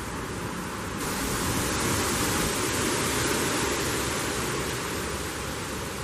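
Wind gusting through trees and rustling autumn leaves; the gust swells about a second in and eases a little near the end.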